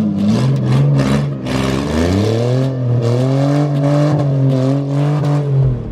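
Mustang drift car's V6 engine revving hard as the car slides across dirt. The pitch dips, climbs again about two seconds in, and holds high before the revs fall away near the end.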